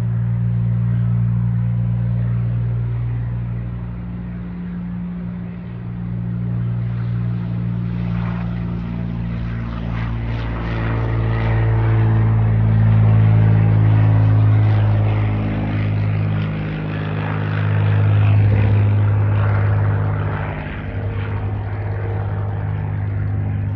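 Light propeller airplane's piston engine running with a steady drone. It gets louder and brighter about eight seconds in.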